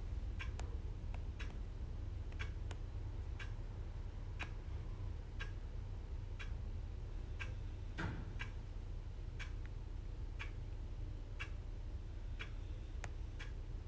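A clock ticking about once a second over a steady low hum, with one slightly louder click about eight seconds in.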